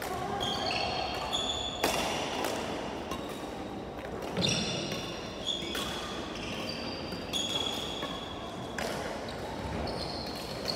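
Sports shoes squeaking on a wooden badminton court floor, many short high squeaks one after another, with a few sharp hits of a racket on a shuttlecock.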